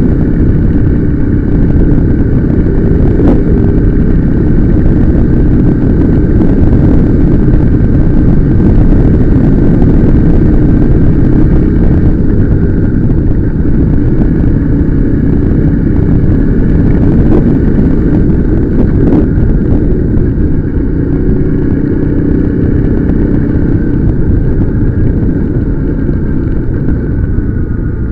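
Motorcycle engine running on the move, under a loud, steady rumble of wind on the microphone.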